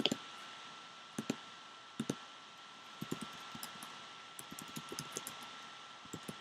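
Scattered light clicks and taps of hands handling things on a tabletop, over a steady faint hiss with a thin high tone.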